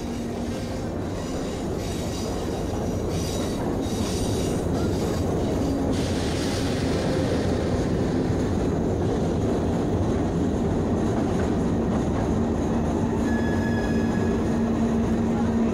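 Dense rumbling noise drone, thick in the low end, swelling slowly over the first few seconds and then holding steady, with a steady low hum that comes in strongly about twelve seconds in.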